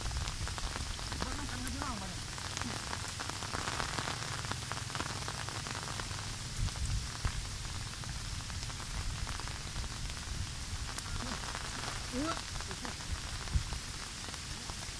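Steady rain falling on vegetation and wet ground, with a low rumble underneath.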